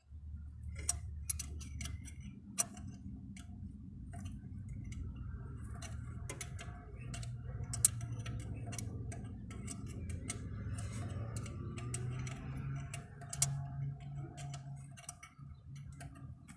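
Ratchet wrench clicking in short irregular runs as it loosens a diesel engine's glow plug, with metal tool clicks over a low steady hum.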